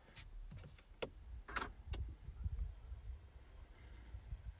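A Renault electric car being switched on: a few sharp clicks in the first two seconds as it powers up and runs its system checks, with no engine sound, over a low rumble.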